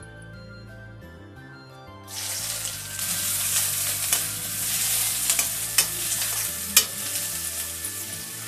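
Sliced onions hitting hot oil in a metal kadhai, bursting into a sizzle about two seconds in that carries on as they fry. A metal slotted spoon scrapes and clicks against the pan several times as the onions are stirred.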